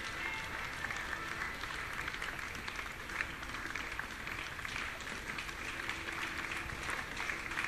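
Large audience applauding: a steady, dense patter of many hands clapping.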